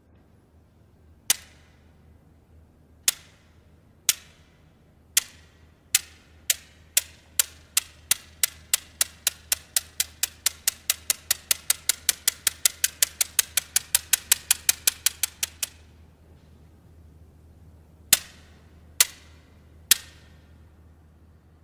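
Pair of curved wooden Thai court clappers (krap) struck as a ceremonial signal: single sharp clacks that come quicker and quicker into a fast even roll, which stops suddenly; near the end come three more single strikes about a second apart.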